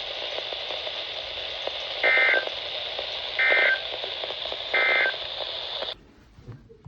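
Three short warbling data bursts of the EAS/SAME end-of-message code, about one and a third seconds apart, over a steady radio hiss. The hiss cuts off suddenly about six seconds in, leaving near silence.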